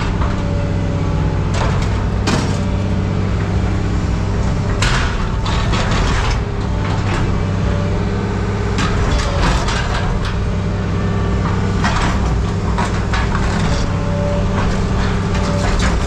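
Scrap metal clanking and clattering in a series of sharp knocks at irregular intervals, over a steady low machine hum.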